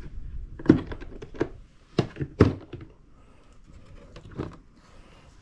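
Hard plastic case and fishfinder mount being handled: a quick series of knocks and clicks in the first half, then a softer knock later.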